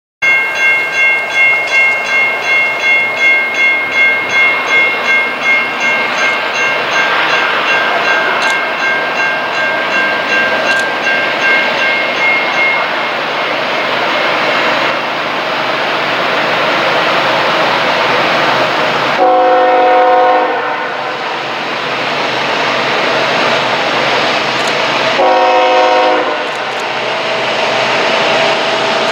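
A bell rings quickly, about two strokes a second, and fades out around twelve seconds in, over the steady noise of an approaching diesel freight train. Later the Norfolk Southern locomotive's air horn sounds two blasts, each about a second and a half long, several seconds apart.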